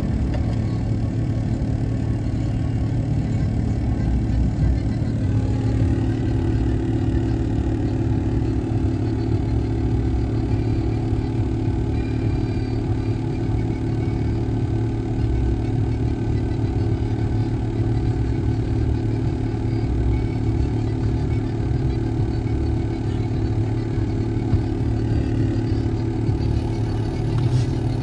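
Steady low engine hum heard from inside a car, holding at one even pitch throughout.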